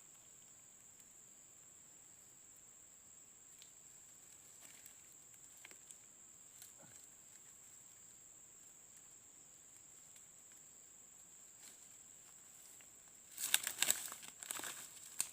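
A steady high-pitched insect drone over faint scattered ticks, then, about 13 seconds in, a loud run of crunching and crackling as someone pushes on foot through dry undergrowth.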